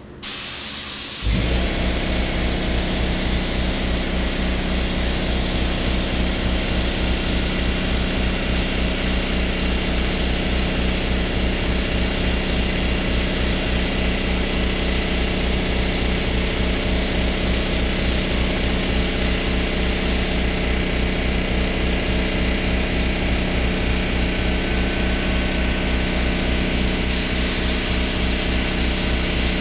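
Compressed-air spray gun hissing as it sprays paint onto a car hardtop, the hiss easing off for several seconds past the middle and then coming back. Under it, an air compressor starts about a second in and runs with a steady, fast pulse.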